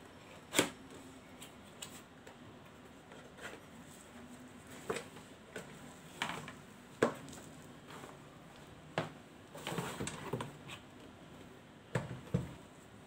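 Unboxing handling: a cardboard box and its packing rustled and opened, and a small 12-volt slow cooker lifted out and set down, with scattered sharp knocks and taps, the loudest about half a second in and about seven seconds in, and a patch of rustling near the end.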